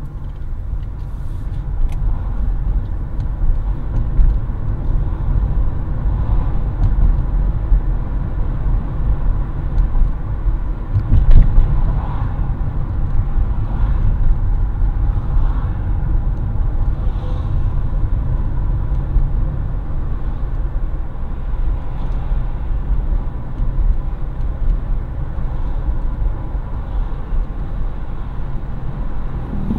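Car driving along a road, heard from inside the cabin: a steady low rumble of tyres and engine, briefly louder about eleven seconds in.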